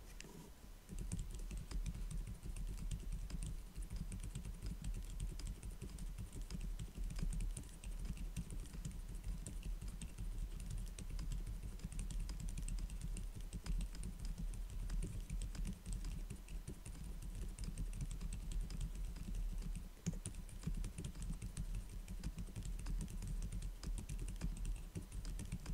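Fast, steady typing on a small custom mechanical keyboard (Delilah) with a stacked acrylic case and POM plate, fitted with Bobagum switches that are lubed with 205g0 and filmed, and HuB keycaps: a continuous run of keystrokes that begins about a second in.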